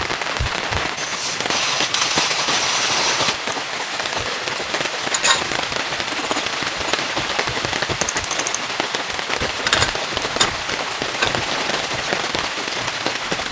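Rain pattering steadily on a surface, a dense crackle of drops, briefly heavier and louder a couple of seconds in.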